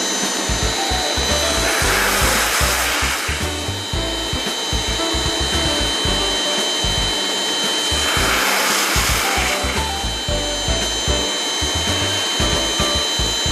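Steady high motor whine from an air-conditioner cleaning machine, with two swells of hissing noise, over background music.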